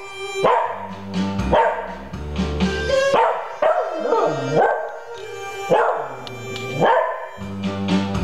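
Pembroke Welsh Corgi howling along to TV theme music, its voice swooping down and up in pitch over the tune.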